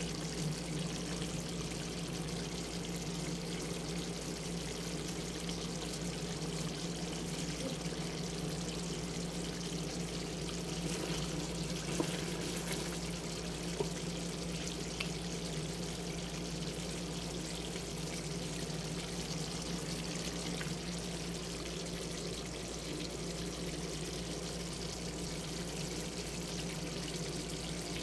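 Chicken adobo simmering in a pan, its sauce bubbling and sizzling in a steady hiss over a steady low hum. Three faint clicks near the middle.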